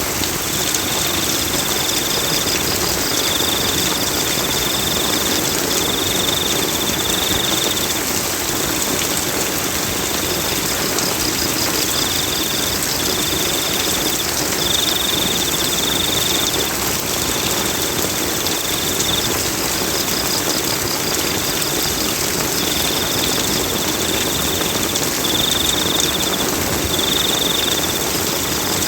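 Steady rainfall hissing evenly, with a high chirping that keeps repeating in stretches of about a second.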